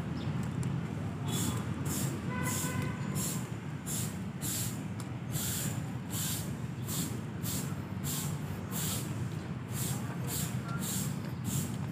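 Footsteps on paving, about two steps a second, over a steady low rumble.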